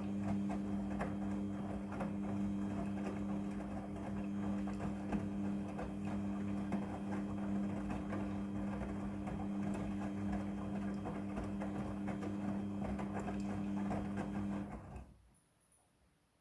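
Midea front-loading washing machine running a wash cycle: the drum motor hums steadily under an irregular clatter of small knocks from the tumbling load. Near the end the motor stops abruptly, as the drum pauses between turns.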